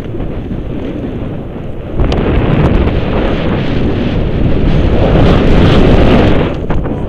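Wind rushing over the action-camera microphone and the snowboard sliding over snow as the rider speeds downhill. The noise steps up about two seconds in as speed builds, and dips briefly near the end.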